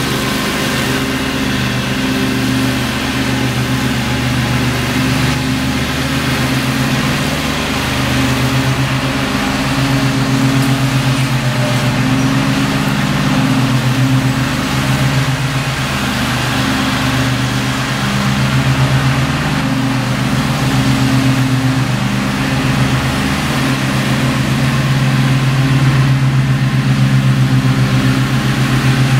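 Gravely zero-turn mower's engine running steadily with the blades engaged, cutting thick grass.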